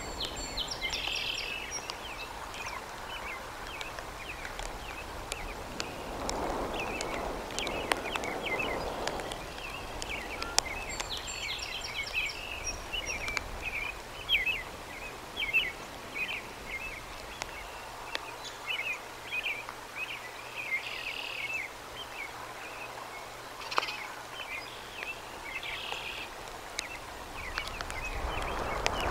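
Birds chirping: many short, high chirps in quick succession, over a steady background hiss.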